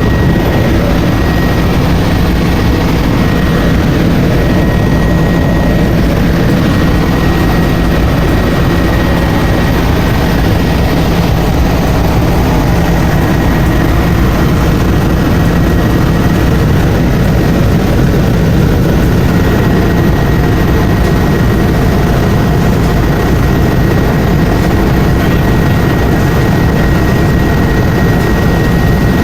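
Helicopter running steadily: loud, even engine and rotor noise with a constant thin whine over it.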